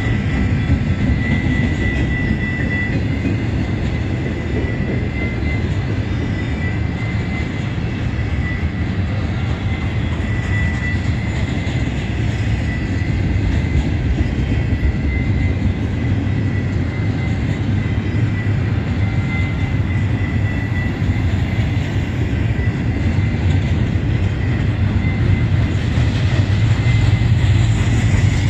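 Double-stack container cars of a BNSF intermodal freight train rolling past: a steady rumble of steel wheels on rail, with a thin high squeal running through it.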